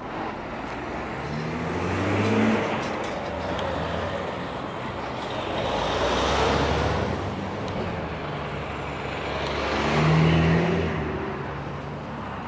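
Road traffic passing close by: three vehicles go past one after another, each swelling and fading, with engine hum and tyre noise.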